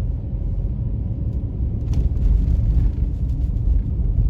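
Car driving on a snow-covered road, heard from inside the cabin: a steady low rumble of engine and tyres that grows a little louder about halfway through, with a faint click about two seconds in.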